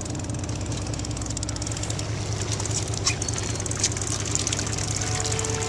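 Fishing boat's engine running steadily under wind and water noise, with a few short clicks. Near the end a steady musical tone starts.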